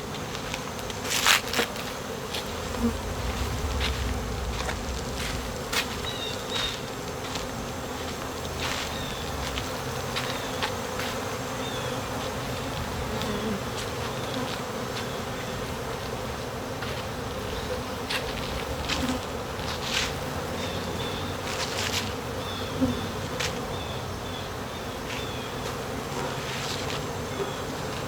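Steady buzzing drone of a large number of honey bees flying around the hives, with scattered brief ticks. The bees are in a frenzy because they have found the honey.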